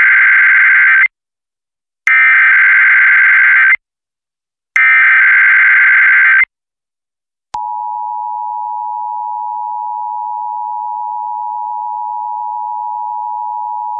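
Emergency Alert System SAME header: a raspy data burst ends about a second in, then two more identical bursts follow. About 7.5 s in a steady two-tone attention signal starts and holds.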